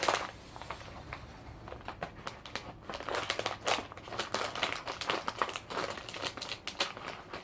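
Plastic snack bag crinkling in a run of irregular crackles as it is handled and cut open.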